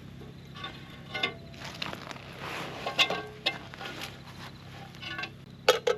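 Campfire crackling, with irregular sharp pops and snaps, the loudest about three seconds in and just before the end.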